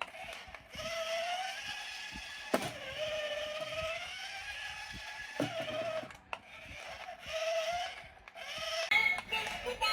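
A thin wavering electronic tune or tone that bends slowly up and down, with a few sharp clicks about two and a half, five and a half and six seconds in.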